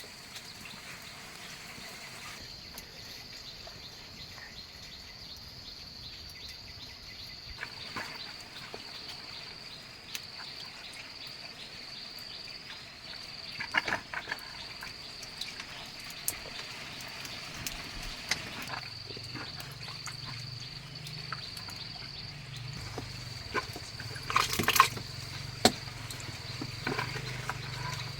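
Insects chirring in a steady, high, even tone, with scattered sharp clicks and knocks, the loudest a little before the end. A low hum joins about two-thirds of the way through.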